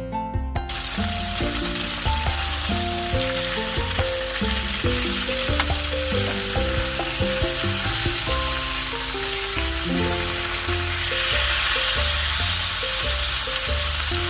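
Chicken pieces frying in hot oil in a pan, a loud steady sizzle that starts about half a second in.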